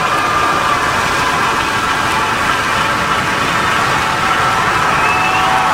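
Falcon 9 Block 5 rocket's nine first-stage Merlin engines running just after liftoff, a loud, steady, dense rumble.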